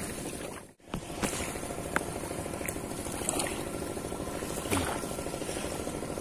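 Small waves lapping and washing on a sandy shore, a steady wash, with a few light clicks and knocks from fishing-rod handling. There is a brief gap in the sound just under a second in.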